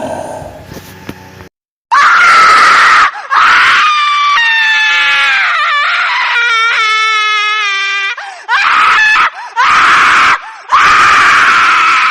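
Horror sound effect of a chudail (witch) shrieking. One shrill scream comes about two seconds in. A long scream follows that turns into a high, wavering wail broken into quick pulses. Three more short screams come near the end.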